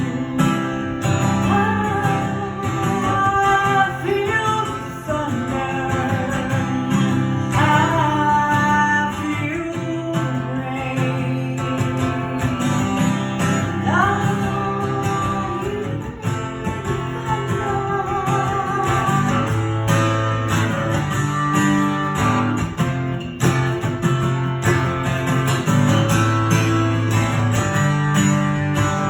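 Acoustic guitar strummed in a song, with a higher melody line that glides between notes over the chords.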